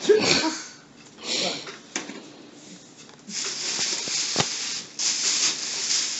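Plastic bag and tissue paper rustling and crinkling as they are handled, steady from about three seconds in. A brief vocal sound, falling in pitch, comes right at the start.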